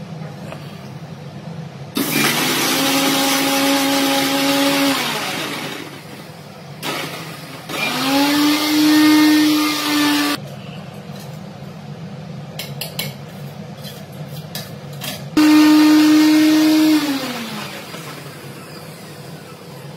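Electric mixer grinder (mixie) switched on in three short runs of a few seconds each, the motor whining steadily and then winding down with a falling pitch each time it is switched off. It is grinding beetroot chutney to a smooth paste.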